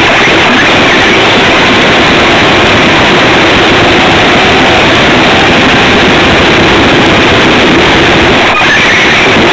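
Radio-controlled car driving through snow: a loud, continuous rushing noise with a faint wavering motor hum under it.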